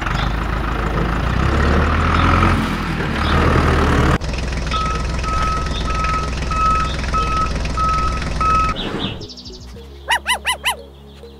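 A heavy vehicle engine runs with a steady low rumble, as for the tractor. About halfway through, a reversing alarm starts beeping about twice a second, and both stop together. Near the end come four short rising chirps.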